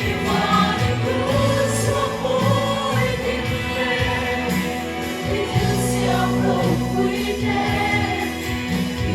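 Music with group singing, voices like a choir over a steady accompaniment.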